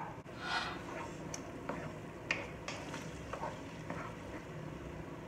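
Wooden spatula scraping ketchup out of a small jar into a pot of sauce, with scattered light taps against the jar and a faint sizzle from the pot.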